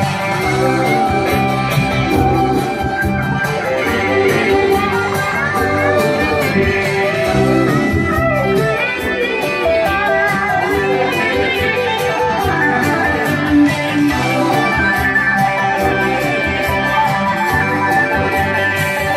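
Live band music led by electric guitar, with a steady beat.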